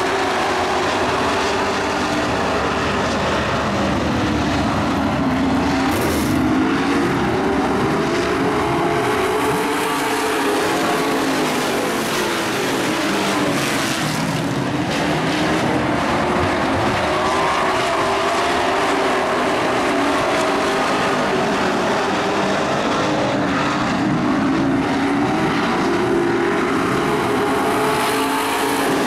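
A pack of dirt-track race trucks' engines running hard, their pitch rising and falling over and over as the trucks accelerate, lift for the turns and pass by.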